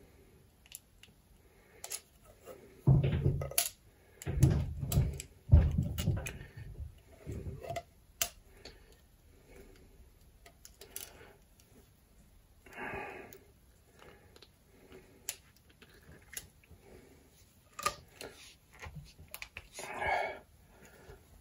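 Handling noise as copper wire is fed through a hole in a plastic conduit coil former: scattered light clicks and rustles, with a cluster of dull knocks about three to seven seconds in.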